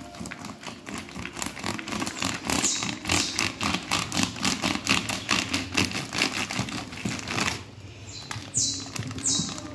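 Kitchen knife sawing back and forth through a roll of fresh pastel dough in its plastic wrapper, a rapid run of rasping strokes several a second. Near the end the sawing stops and the plastic wrapper crinkles twice as the cut halves are pulled apart.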